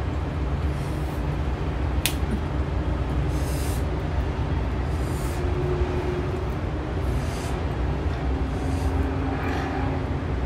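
A fresh cucumber snapped in half by hand: one sharp crack about two seconds in. Soft crunchy chewing comes and goes, all over a steady low rumble.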